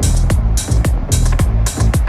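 Background music with a steady beat: punchy kick and snare hits, three or four a second, over a deep bass line.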